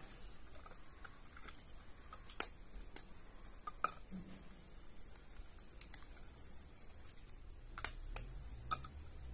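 A few scattered, sharp light taps and clicks of kitchenware being handled on a table, with a cluster of taps near the end as an egg is handled over a bowl, over a faint steady high-pitched hiss.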